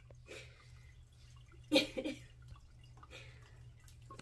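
A grooming brush swishing through a cat's fur in soft rasping strokes. A short voice-like sound comes about two seconds in and is the loudest thing heard.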